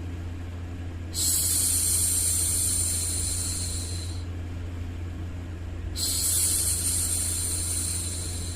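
A woman's voice shushing a baby with two long, steady 'shhh' sounds, the first starting about a second in and the second about two-thirds of the way through, over a steady low hum.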